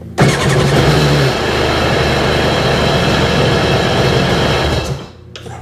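A 2002 Sea-Doo GTX DI personal watercraft's Rotax two-stroke direct-injection twin starts instantly and runs steadily for about five seconds, then is shut off near the end.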